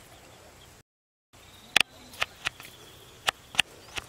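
Dry leaves and twigs snapping underfoot on a hillside: about seven sharp, irregular crackles over a couple of seconds, over a faint steady high insect drone. The sound drops out to silence briefly about a second in.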